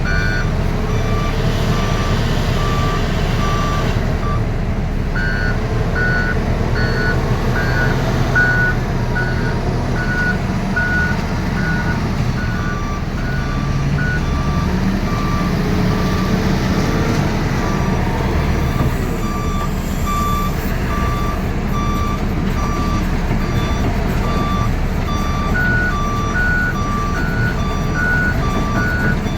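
Reversing alarms on heavy earthmoving machinery beep steadily, a little over once a second, over the steady rumble of a running diesel engine. The beeps come at two different pitches, now one, now the other, and at times both together.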